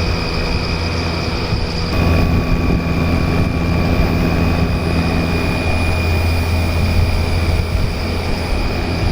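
LG Dual Inverter window air conditioner running with its casing off: a steady hum under a shrill, cricket-like whine, from the fan's bearings, worn rough by dust and rust, scraping as the fan turns. About two seconds in the sound shifts, a little louder with an added tone.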